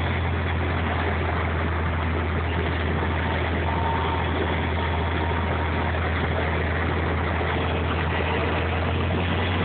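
Steady low drone and road noise inside the cabin of a New Flyer DE40LFR diesel-electric hybrid transit bus cruising at a constant speed.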